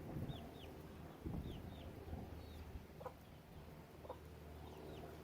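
Backyard chickens clucking quietly, with pairs of short high chirps that fall in pitch, heard three times, and a few soft clucks.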